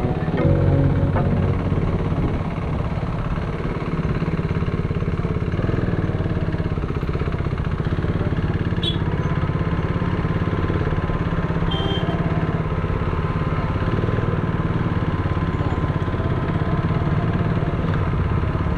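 Motorcycle engine running steadily at an even pace. A thin steady whine joins about halfway through.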